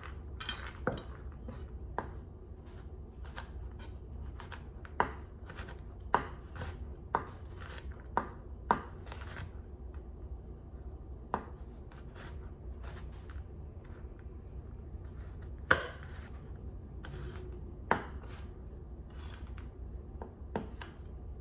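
Chef's knife roughly chopping macadamia nuts on a bamboo cutting board: irregular knocks of the blade on the board, a handful of them sharper and louder, over a low steady hum.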